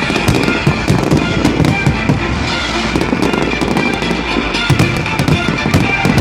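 Fireworks display: many shells bursting and crackling in quick succession, over loud music.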